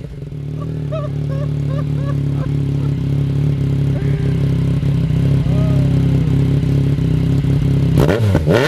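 Yamaha MT-09's inline three-cylinder engine running through a Black Widow full exhaust with the baffle removed. The revs drop back to a loud, steady idle right at the start, and the engine is blipped up and down a couple of times near the end.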